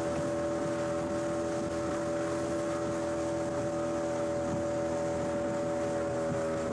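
Motorboat engine running steadily at speed, a constant drone, over the rush of wind and water as the boat moves.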